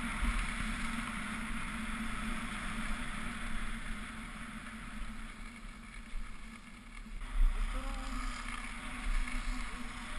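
Wind buffeting a GoPro's microphone and skis hissing over groomed snow on a fast downhill run, with a brief thump about seven seconds in.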